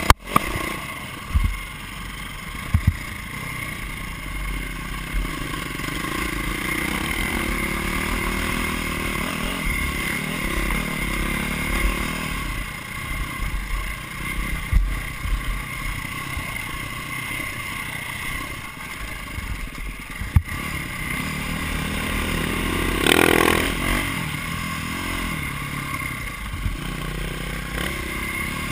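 Dirt bike engine running as the motorcycle is ridden over a bumpy forest trail, with sharp knocks and rattles from the bumps and a brief louder surge a little before the end.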